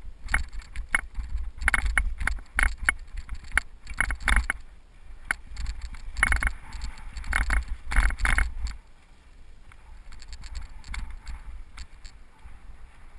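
Cyclocross bike rattling and clattering over rough, rocky trail at speed, with a steady rumble of wind on the microphone. The clatter comes in dense clusters, then eases to scattered knocks about nine seconds in as the trail smooths out.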